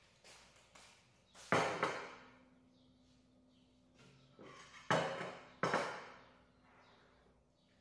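Kitchen utensils and dishes being handled: a few sharp knocks and clatters, the loudest about one and a half seconds in and a pair around five seconds in, over a faint steady hum.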